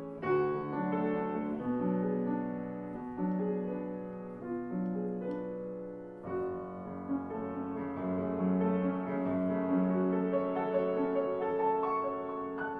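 Grand piano being played: a classical passage of sustained notes, with a new phrase entering firmly about halfway through.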